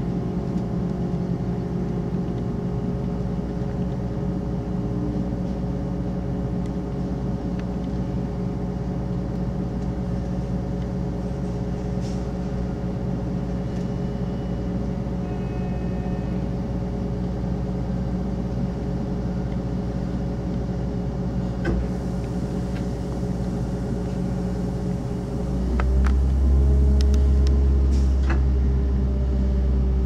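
Inside a regional train running into its terminus station: a steady engine and running hum with a few sharp clicks from the wheels over rail joints. About 25 seconds in, a louder, deeper rumble sets in and stays.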